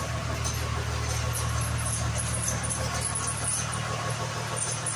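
Toyota Land Cruiser HJ61's 12H-T straight-six turbodiesel idling steadily.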